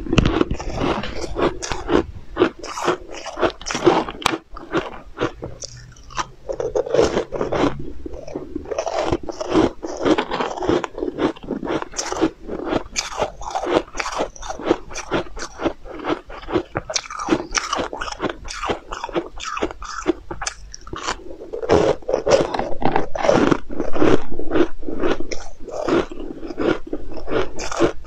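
Close-miked biting and chewing of crisp, flaky pastry cookies: a dense, irregular run of crunching and crackling that goes on without a break.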